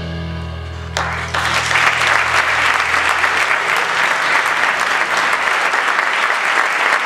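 The band's last chord rings and fades. About a second in, the audience starts applauding, and the applause goes on steadily.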